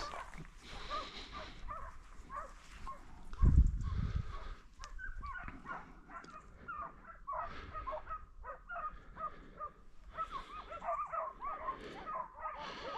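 A pack of hunting dogs baying and yelping, many short overlapping calls, as they chase a wild boar. A single low thump about three and a half seconds in.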